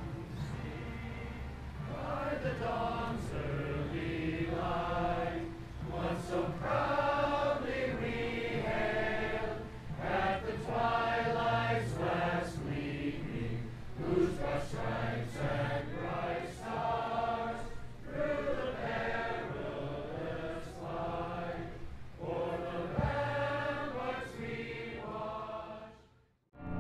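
A large choir singing together, fading out near the end.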